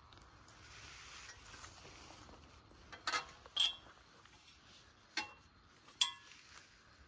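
A soft rustle, then four sharp clicks, two of them with a brief ring.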